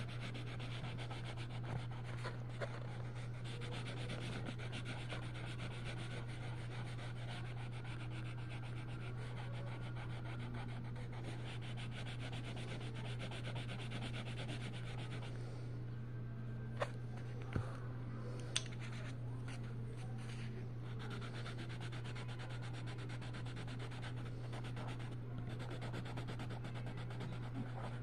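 Coloured pencil rubbing across paper in steady shading strokes, over a constant low hum. The rubbing thins out a little past halfway, where a few sharp clicks are heard.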